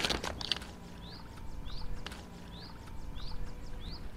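Shoes crunching on river pebbles as a stone is thrown, the loudest sound, right at the start. Through the rest, a bird repeats a short rising chirp about once a second, with a few faint clicks.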